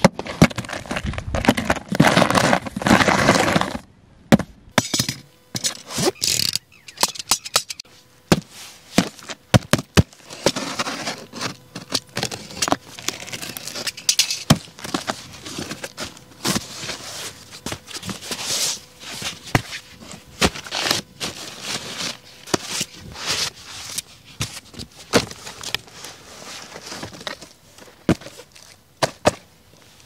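A cardboard shipping box being opened by hand: packing tape ripping, cardboard flaps tearing and creaking, and crumpled newspaper packing rustling. Irregular sharp cracks and crackles, densest in a noisy stretch over the first few seconds.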